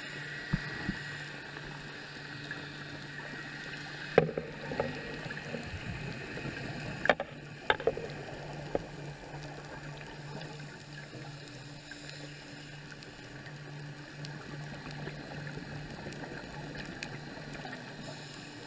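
Underwater sound picked up by a diver's camera: a steady low hum with a few sharp clicks and knocks, the loudest about four seconds and seven seconds in.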